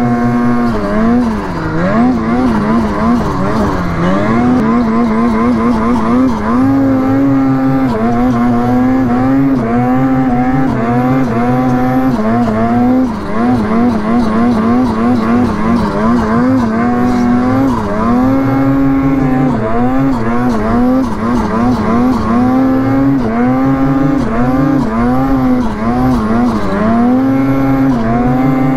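Ski-Doo Freeride 146 Turbo snowmobile engine running hard under constantly changing throttle, the revs rising and falling about once a second with quick blips and dips as it works through deep snow.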